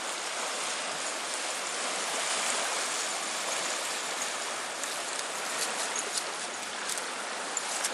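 Small river waves washing over a pebble-and-rock shore: a steady hiss of moving water, with a few light ticks in the second half.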